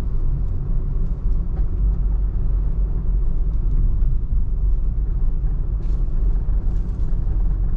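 Steady low cabin rumble of a Tata Altroz iTurbo's 1.2-litre three-cylinder turbo petrol engine and tyres, driving at about 30 km/h in fifth gear, the engine turning slowly at low revs.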